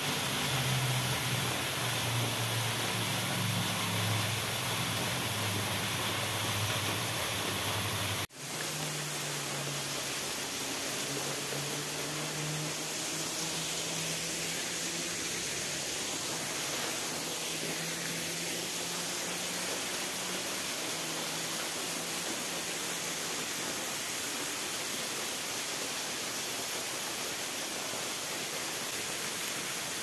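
Steady rushing of a waterfall and flowing stream water, even and unbroken apart from a brief drop-out about eight seconds in.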